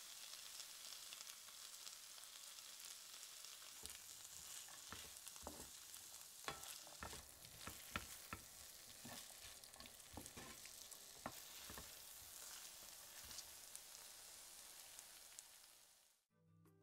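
Beans and onion-tomato sauce sizzling in a frying pan, with a utensil stirring and knocking against the pan from about four seconds in. The sizzle cuts off suddenly near the end.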